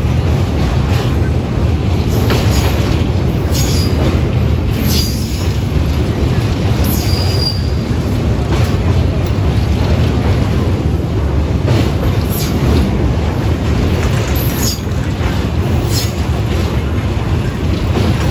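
Passenger train running at speed, heard loud at an open coach door: a steady heavy rumble of wheels on rails with brief high wheel squeals every few seconds.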